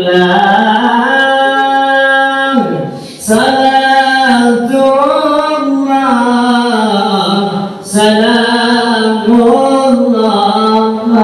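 A man singing a salawat (devotional praise of the Prophet) unaccompanied into a microphone, in long held notes with melodic turns. He breaks for breath about three seconds in and again near eight seconds.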